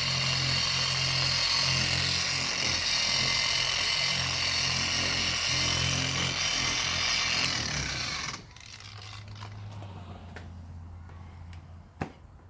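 Electric orbital polisher sanding a plastic headlight lens with a fine sanding disc, running steadily, then switched off about eight seconds in and winding down with a falling whine. A low hum remains afterwards, with a single sharp click near the end.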